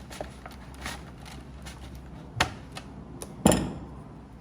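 Kitchen utensils knocking and clinking against dishes and the pan: a few scattered taps, a sharper knock about two and a half seconds in, and the loudest clink about a second later, which rings briefly.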